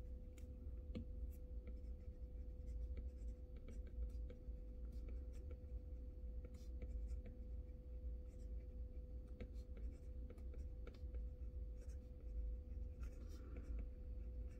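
Stylus tip tapping and writing on a tablet screen: light, irregular clicks over a steady low room hum.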